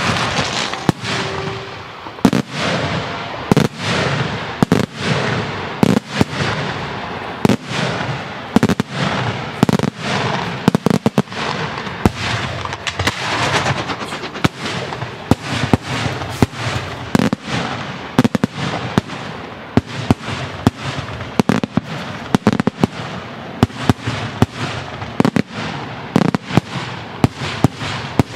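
Daytime fireworks display: aerial shells bursting overhead in a dense barrage of sharp bangs, about two a second, over a continuous crackle.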